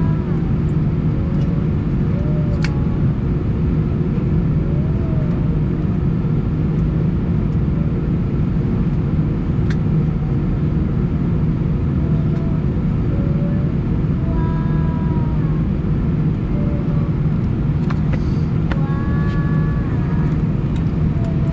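Steady cabin noise inside an Airbus A319 on the ground after landing: the jet engines run at idle under a deep, even rumble with a low hum.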